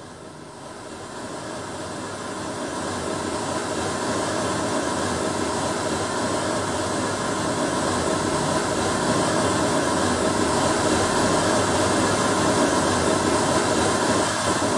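Pink noise test signal played through a mixer channel and speaker: a steady, even hiss that grows louder over the first few seconds as the channel fader is brought up, then holds.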